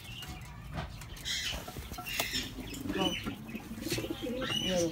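Pigeons fluttering and shuffling in a wire-mesh coop, disturbed by a hand reaching in, with scattered rustles and knocks and a couple of short pigeon calls.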